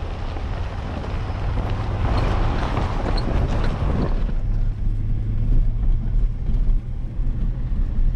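Motor vehicle engine running steadily with a low hum. A louder rushing noise builds during the first half and drops away about four seconds in.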